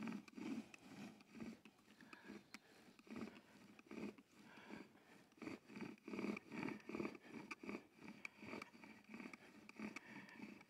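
Bow drill at work: the bow saws back and forth and the wooden spindle grinds and squeaks in the hearth board's divot with each stroke, a faint, even rhythm. The set is being burned in and warmed up from the cold, not yet worked for an ember.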